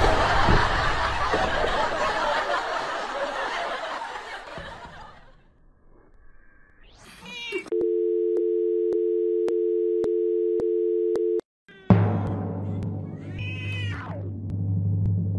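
Edited soundtrack: a crash-like hiss fades out over about five seconds, then a steady electronic tone like a telephone dial tone is held for about four seconds and cuts off suddenly, and drum-heavy music comes back in.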